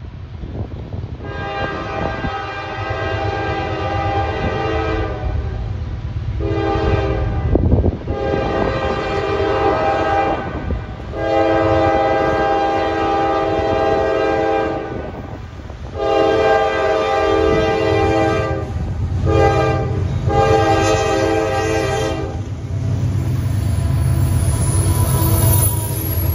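CSX freight train's locomotive air horn sounding a multi-note chord in a series of long and shorter blasts as it approaches a grade crossing. Near the end, the low rumble of the diesel locomotives grows as they pass close by.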